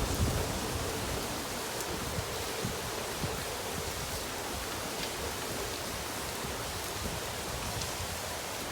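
Steady rain falling, an even hiss with a few faint drip ticks, and some low buffets at the very start.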